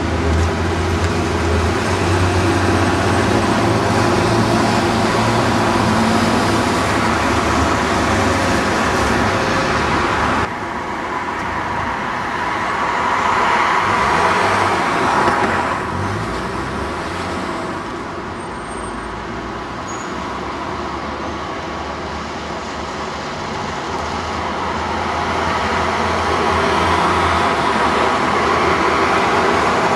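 Diesel buses running past in town traffic, with a steady low engine hum. About ten seconds in the sound cuts to a red open-top double-decker sightseeing bus, a Leyland Olympian, whose engine grows louder as it approaches near the end.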